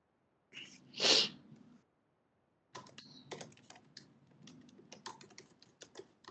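Typing on a computer keyboard: quiet, irregular key clicks from about three seconds in, picked up by an open video-call microphone. About a second in, before the typing, a short breathy rush of noise is the loudest sound.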